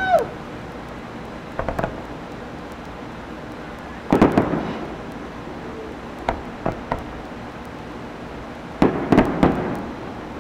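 Aerial fireworks shells bursting: a bang at the start, a quick triple of pops about two seconds in, a cluster of heavier booms about four seconds in, a few single pops, and another cluster of booms near the end.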